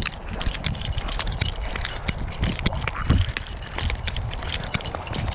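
Walking noise picked up by a chest-strapped GoPro: many irregular clicks and scrapes from the mount and clothing rubbing, and footsteps on a concrete sidewalk, over a low rumble.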